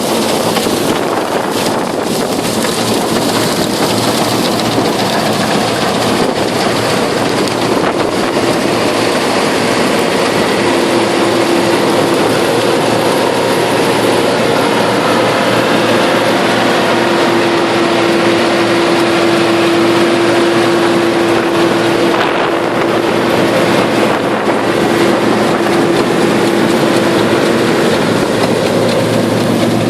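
Combine harvester running steadily: a loud, even machine noise, with a steady whine that comes in about a third of the way through and fades near the end.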